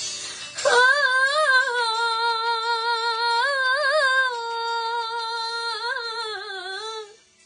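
A woman singing one long held note without accompaniment, in dangdut style, with a wavering ornament in the middle. The pitch dips near the end and the note stops about seven seconds in.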